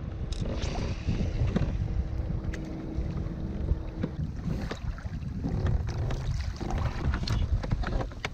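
Wind buffeting the microphone over choppy water lapping against a kayak's hull, with a few light clicks scattered through.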